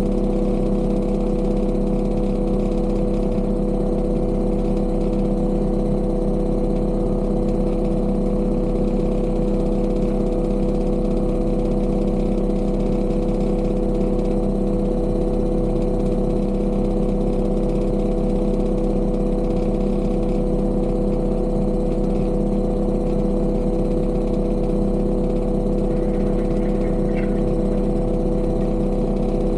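Heavy construction machine's diesel engine running at a steady speed, with an even, unchanging drone.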